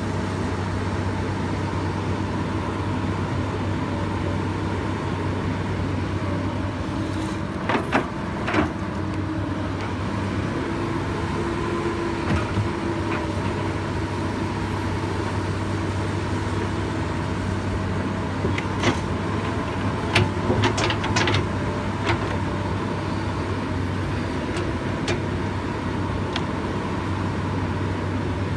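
Komatsu PC200 hydraulic excavator's diesel engine running steadily as it digs. Occasional sharp knocks, a few in quick succession about two-thirds of the way through.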